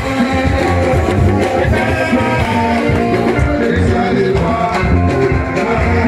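Loud music with a singing voice and guitar over a steady bass beat.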